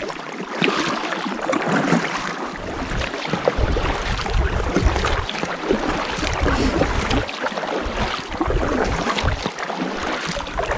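Kayak paddling: paddle blades dipping into calm water, with water dripping and splashing off the blades. A low rumble comes and goes in stretches.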